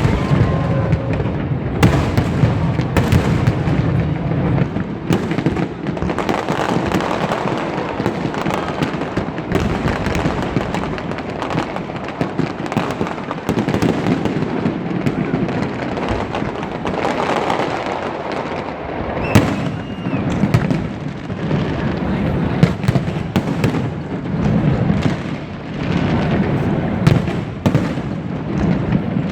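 Fireworks display: a dense, continuous barrage of crackling and bangs, with many sharp louder reports going off one after another and no pauses.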